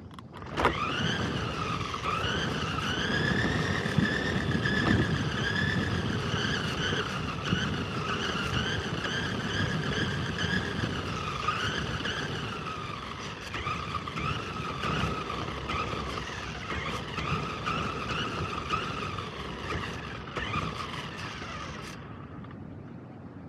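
Radio-controlled car driving on a rough paved path, heard from on board: its motor whines, rising in pitch as it sets off about half a second in, wavering with speed, and cutting off near the end as it stops, over the rumble of its tyres on the gritty surface.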